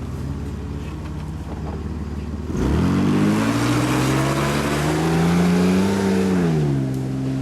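Off-road vehicle's engine running steadily, then about two and a half seconds in it is suddenly opened up, revs climbing steadily under load with a rush of added noise, before easing back to a steady lower note near the end.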